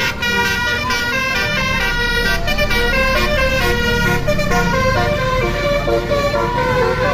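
Telolet musical horn on a bus playing a quick tune of short, stepped notes, with bus engines running low underneath.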